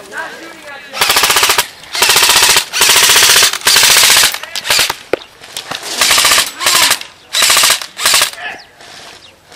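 Airsoft electric rifle firing on full auto in about eight short bursts, a rapid chatter of shots, with brief pauses between bursts.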